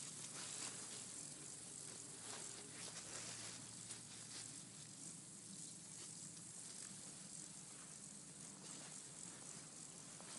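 Faint meadow background: a steady high hiss with soft, scattered rustles in the grass.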